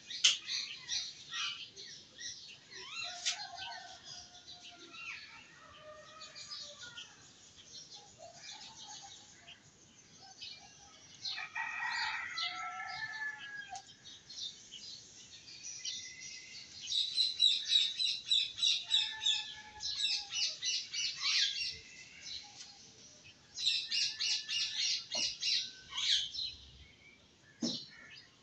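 Songbirds chirping and trilling, with bursts of rapid trills coming and going. Two short knocks near the end.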